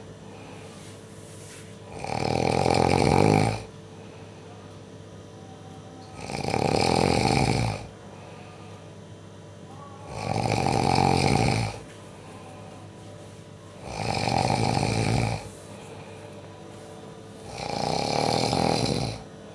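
Loud, regular snoring: five long snores, one about every four seconds, with a faint steady hum between them.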